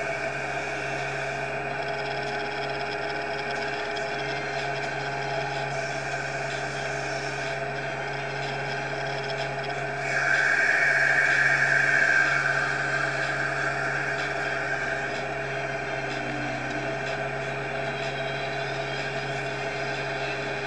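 Siloking self-propelled feed mixer wagon running, heard from inside its cab: a steady machine drone with a strong low hum. About ten seconds in, a louder high whine rises over it for two to three seconds, then fades back.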